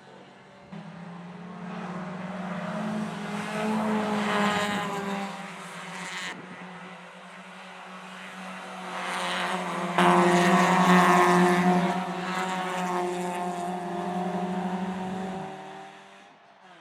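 Race car engines on a circuit, swelling up as cars pass at speed and dying away. The loudest pass comes about ten seconds in, and the sound changes abruptly a few times where shots are cut together.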